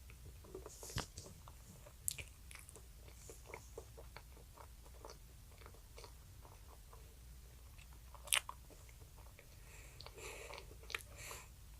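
Close-miked eating sounds from a child: chewing and biting with many small wet clicks of the mouth, one louder click about eight seconds in.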